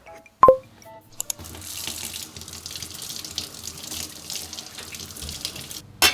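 A sharp clink that rings briefly about half a second in, then a kitchen tap runs water into the sink for about four and a half seconds, ending with a loud sharp knock.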